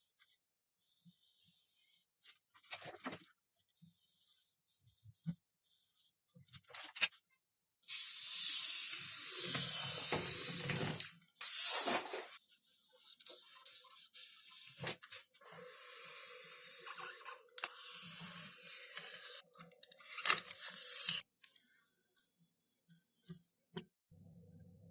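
Several stretches of hissing, rustling noise from hands-on model-building work. The longest and loudest lasts about three seconds and stops suddenly, and light clicks and handling noises come before and after.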